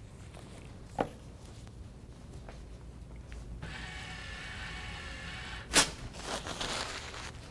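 An automatic enMotion paper towel dispenser's motor whirring for about two seconds as it feeds out a towel, then a sharp snap as the towel is torn off, followed by paper crinkling. A single knock comes about a second in.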